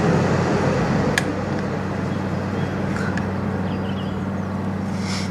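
A steady mechanical hum with a low drone under a rushing noise, with a faint click about a second in and another about three seconds in.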